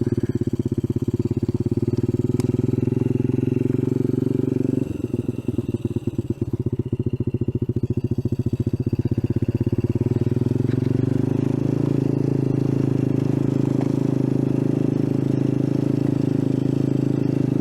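Icebear Champion 125cc mini bike's single-cylinder engine running steadily at part throttle while riding a dirt trail. It eases off briefly about five seconds in, then picks back up to a steady pull.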